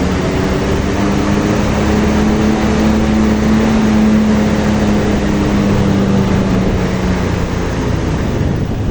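Tour bus driving past close by: a steady low engine drone over tyre and road noise. It swells to its loudest about four seconds in, then eases off, and the engine tone drops away near the end.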